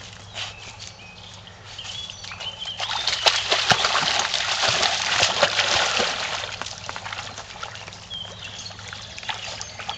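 A dog stepping and wading into a shallow stream, water splashing and sloshing around its legs, loudest in the middle few seconds, over the stream's steady trickle.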